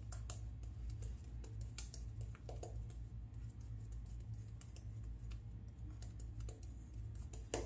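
Shaving brush working shaving-cream lather over a day-and-a-half stubble: faint, irregular crackling and clicking, over a steady low hum.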